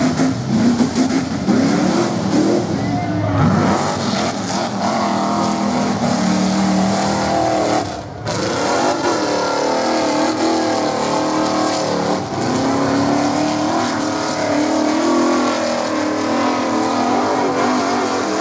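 Rock bouncer's engine revving hard and unevenly, its pitch rising and falling again and again as it climbs a steep dirt hill, with a brief break about eight seconds in.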